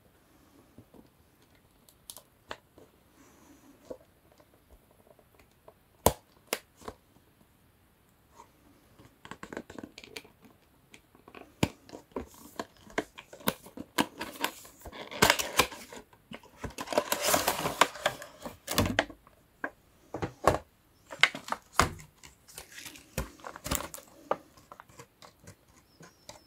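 An action figure's cardboard window box being opened by hand: a fingernail picking at the tape seals with scattered clicks and taps, then a stretch of tearing, scraping and rustling of cardboard and clear plastic packaging, loudest a little past the middle.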